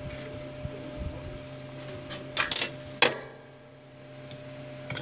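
Small clicks and taps of a smartphone's display and plastic frame being handled and pried with a thin metal tool, with a few sharp clicks between two and three seconds in, the sharpest at about three seconds.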